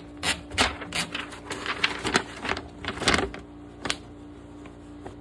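Keys of an Olympia SM7 manual typewriter striking in an irregular run of clacks for about three and a half seconds, then a single strike, then it stops.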